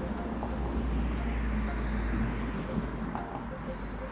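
A steady low rumble, with a person slurping instant ramen noodles in a short hissy burst near the end.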